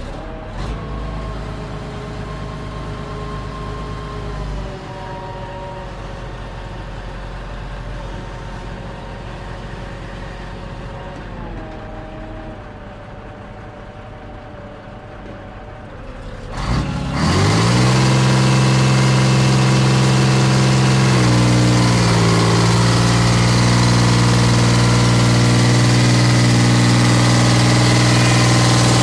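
Multirotor drone's motors and propellers humming steadily as it flies. About two-thirds of the way through, the hum jumps much louder and lower, then dips briefly in pitch a few seconds later before steadying.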